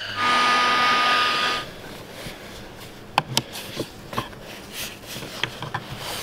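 A loud, steady, blower-like hiss with a faint whine lasts about a second and a half and then cuts off. After it come scattered light clicks and knocks as a thick battery cable and its lug are handled and fitted into a plastic battery box.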